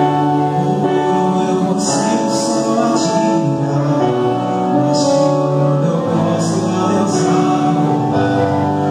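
A group of men singing a Portuguese gospel song into microphones, with instrumental accompaniment and long held notes.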